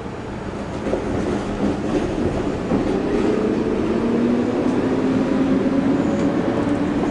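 Low rumble of a passing vehicle out of view, growing louder about a second in, with two tones that slowly fall in pitch.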